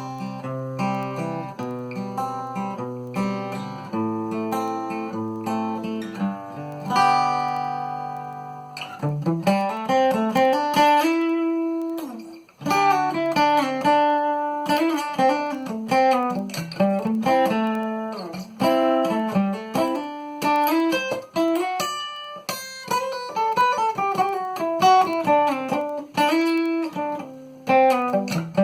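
Cort GA5F-MD acoustic guitar with a spruce top and Madagascar rosewood body, played with a pick: chords ringing and changing about once a second, then a quicker single-note melody from about nine seconds in.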